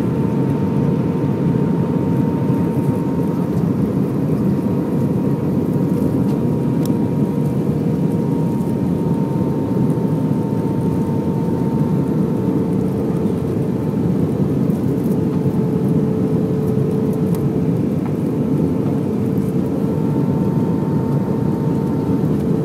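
Steady cabin noise inside an Airbus A320 in flight on approach: a constant roar of jet engines and airflow, with a faint steady hum over it.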